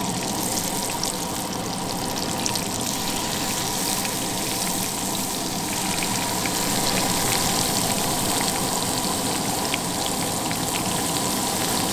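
Striped bass fillets frying in butter in a nonstick pan, a steady sizzle dotted with small crackles.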